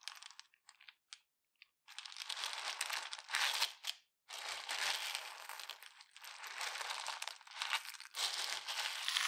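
Clear slime being pressed and kneaded into a bowl of small plastic beads, the beads crunching and crackling against one another. A few faint clicks come first, then the crunching starts about two seconds in and goes on in several bursts with short pauses.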